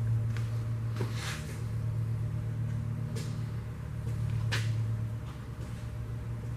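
A few sharp clanks and clicks of hand tools and metal engine parts being handled during teardown of a 1950 Mercury engine, over a steady low hum.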